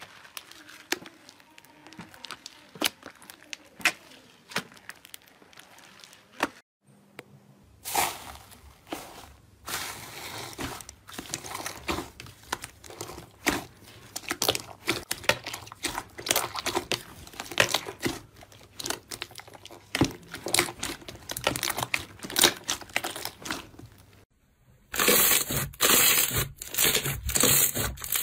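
Slime being kneaded and pressed by hand: a dense run of small crackles, clicks and pops. There is a short break about seven seconds in, and a louder stretch of crackling near the end.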